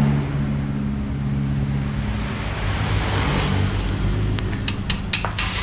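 Yamaha Force 1's two-stroke single-cylinder engine idling steadily through its stock muffler. Near the end come several sharp metallic clicks and knocks.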